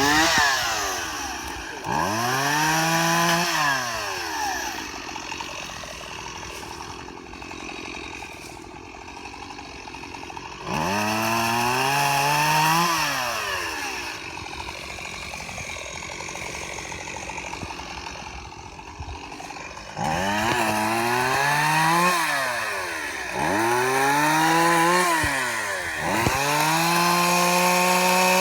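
Old Stihl chainsaw's two-stroke engine revving up hard about six times, each time holding at full revs for a second or two before dropping back. It idles in the long gaps between.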